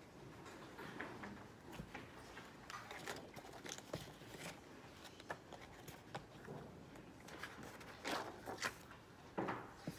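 Paper handling at a desk: workbook and notebook pages being turned and rustled, with small scattered taps and clicks of stationery. A few louder rustles come near the end.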